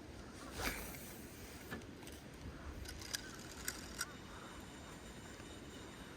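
Wind rumbling steadily on the microphone, with a soft swish about a second in and a few sharp, light clicks around the middle.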